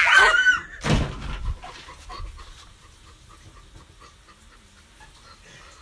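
A pet animal vocalizing: a loud cry that sweeps up and down in pitch at the start, a second loud call about a second in, then fainter sounds.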